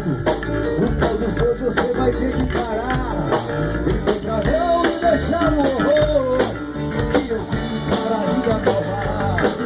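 Rock music with an electric bass, a Precision Bass with active EMG pickups, played along with a growling tone.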